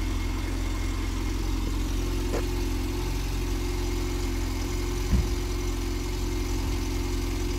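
Skoda Favorit's 1.3-litre four-cylinder petrol engine idling steadily, heard through the open door. One short low thump about five seconds in.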